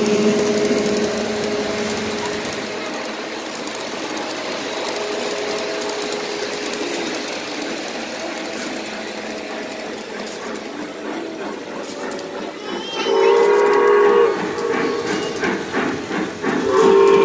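Three-rail model trains rolling past on the layout, a steady rumble and clatter of wheels on track, with a held two-note tone over the first couple of seconds. About two-thirds of the way through, the model Santa Fe 3751 steam locomotive's whistle blows for about a second, and it blows again near the end.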